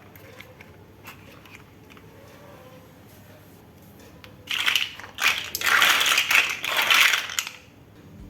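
Lego bricks being handled: a few faint plastic clicks, then about halfway through a loud, dense rattle of small plastic pieces for about three seconds, stopping shortly before the end.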